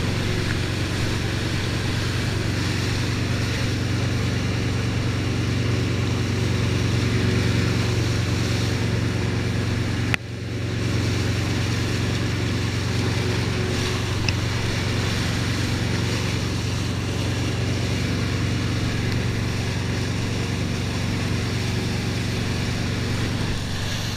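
Wake boat's inboard engine droning steadily close by, mixed with rushing water spray from the wake and wind buffeting the microphone. The sound cuts out abruptly for a moment about ten seconds in, then resumes.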